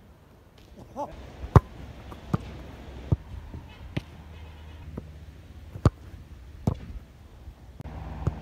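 Football being kicked and stopped: a series of sharp thuds of boot on ball and ball on the goalkeeper's gloves, about seven in all, the loudest about a second and a half in.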